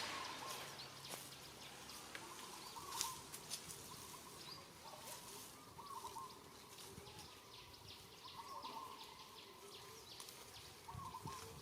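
Faint short chirping calls, one every second or two, with scattered light clicks and rustles over a low outdoor background.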